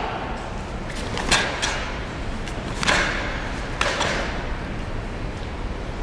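Three sharp cracks from a karate kata performance, about a second in, near three seconds and near four seconds, each echoing briefly in a large gym hall.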